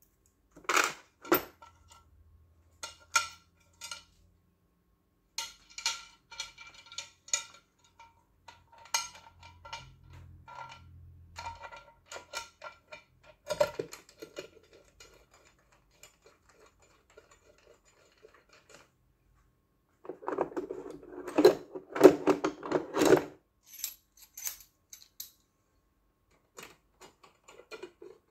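Metal parts and hand tools clinking and clicking as an electric-car charger is put back together, in scattered sharp strokes that ring briefly. About two-thirds of the way through comes a louder run of rattling that lasts a few seconds.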